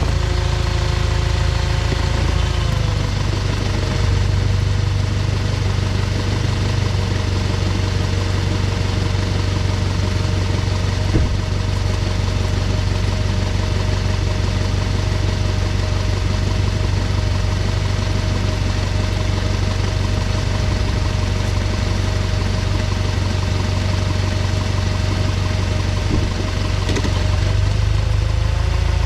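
2012 Audi A4 (B8.5) with S tronic dual-clutch gearbox, engine running at low revs with a steady low drone and a rattle from the driveline. This is the rattle the owner gets in reverse under load, later diagnosed as a badly burned clutch caused by a faulty mechatronic unit. The engine note dips slightly a couple of seconds in and rises again near the end.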